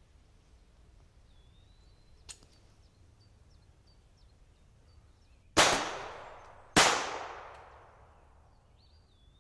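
Two pistol shots about a second apart, each ringing out with a long decaying echo, after a single sharp click a few seconds earlier. Faint bird chirps in the background.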